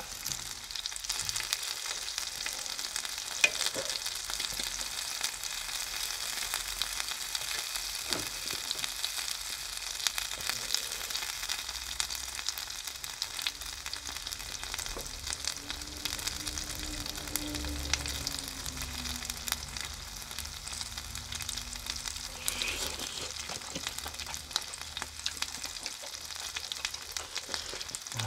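Chicken yakitori skewers sizzling as they grill: a steady hiss with scattered small pops and crackles.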